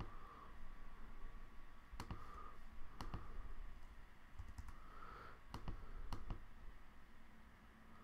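Faint, scattered clicks from a computer mouse and keyboard, about five spread over several seconds.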